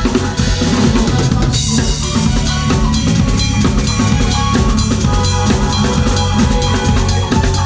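Drum kit played fast with a band: dense, rapid kick, snare and cymbal strokes over sustained pitched instruments.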